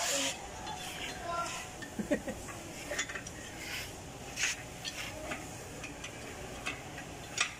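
Irregular metallic clinks and taps, roughly one a second, of hand tools working on the fittings of a Fuso Fighter truck's air dryer assembly as it is being unbolted for removal.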